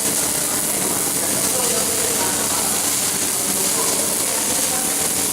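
Welding arc running continuously with a steady crackling hiss.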